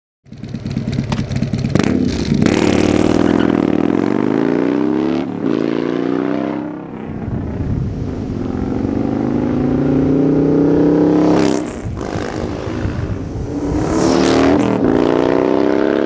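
Harley-Davidson 114-cubic-inch V-twin in Stage II tune with a Feuling 465 cam, running through a D&D Billet Cat exhaust and accelerating hard through the gears. The engine note climbs, drops back at two upshifts, and climbs again each time.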